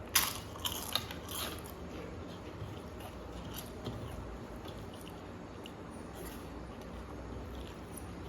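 A crisp papad bitten with a few loud crackling crunches in the first second and a half, then quiet mouth chewing.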